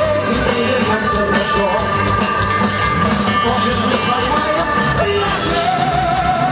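Rock song played by a band with singing, at a steady loud level; near the end a long high note is held.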